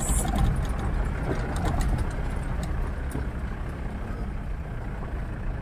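Old Mahindra Bolero on a rough dirt road, heard from inside the cab: steady engine and road noise with a few light knocks as the body shakes.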